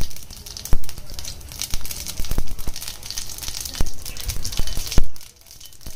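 Cumin seeds crackling and popping in hot mustard oil over a steady hiss, the tempering step once the oil is hot. The loudest pop comes about five seconds in, followed by a brief lull.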